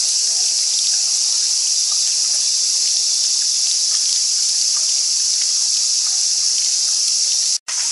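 Steady, loud, high-pitched drone of a summer cicada chorus, unbroken but for a brief gap near the end.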